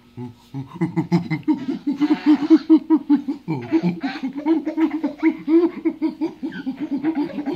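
Baby laughing in quick, repeated bursts as an adult sniffs playfully at it.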